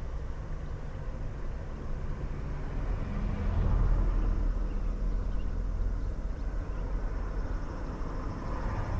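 Low rumble of a passing motor vehicle in the background of an outdoor recording, swelling to its loudest about four seconds in and then easing off.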